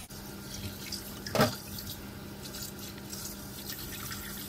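Kitchen tap running steadily into a stainless steel sink as a needlefish is rinsed under the stream. About a second and a half in there is one short, louder thump.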